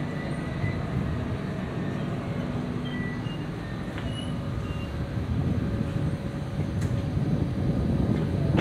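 Rodalies commuter train running, a steady rumble of wheels on rails that grows a little louder in the second half.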